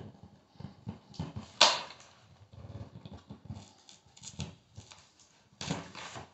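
Utility knife cutting and handling a strip of flexible plastic peel-and-stick quarter round on cardboard: scattered small clicks and scrapes, with one sharp loud click about one and a half seconds in.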